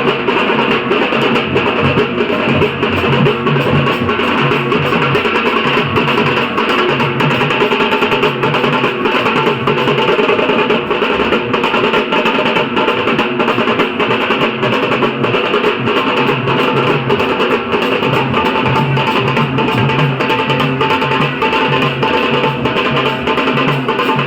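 Dhol-tasha drum ensemble playing loudly: rapid, continuous strokes on the high tasha drums over a repeating beat pattern on the big dhol drums.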